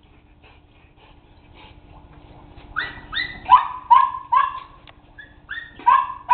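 Dog giving a run of short, high-pitched yips and whines, starting about three seconds in.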